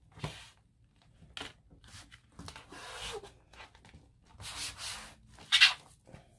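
Hands pressing and rubbing across the smooth top panel of an LED light pad, several short swishes with the loudest near the end, after a soft thump at the start. The panel is being pressed back down onto double-sided tape.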